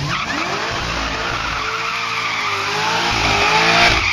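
Supercharged 6.2-litre V8 of a tuned 2009 Cadillac CTS-V held at high revs, its pitch rising at first and then wavering, while the rear tyres spin and squeal in a burnout.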